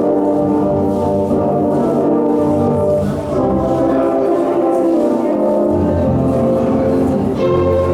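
Orchestral dance music with prominent brass, played loudly with sustained chords and a steady bass.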